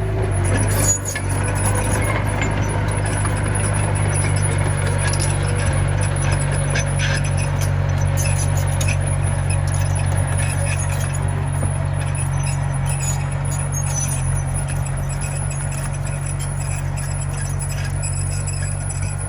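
Diesel engine of a small Komatsu bulldozer running at a steady speed, with scattered light clicks over it.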